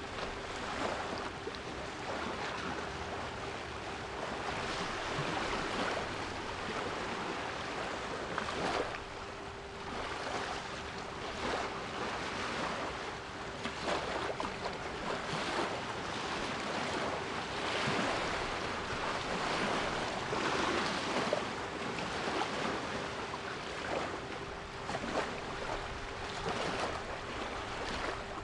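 Sea waves washing in repeated surges, with a steady 396 Hz pure tone held underneath.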